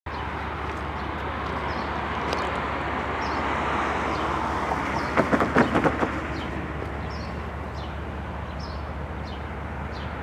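A car's tyres clatter over the rails of a road grade crossing about five seconds in, a quick run of sharp knocks, over a steady outdoor rumble with small birds chirping.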